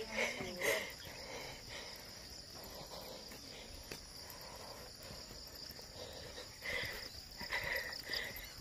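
Steady high-pitched insect chirring, like crickets, from roadside grass and trees, with a few short faint sounds near the end.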